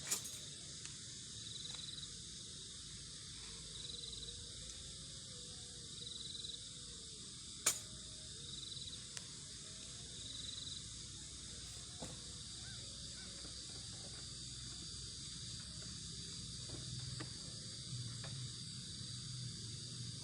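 Steady high-pitched chirring of insects such as crickets, with a short high call repeated about every two seconds through the first half and two sharp clicks, one at the start and one about eight seconds in.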